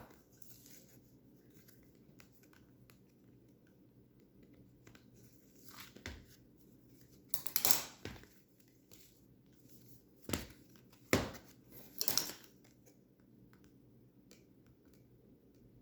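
Packaging of a box of speed cubes being opened by hand: a few short bursts of rustling and tearing, with quiet gaps between them.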